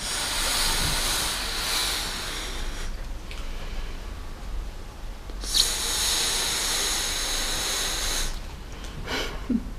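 A latex balloon being blown up by mouth: two long, breathy blows of air, the first about three seconds long and the second starting about halfway through, with a quieter pause between them for a breath.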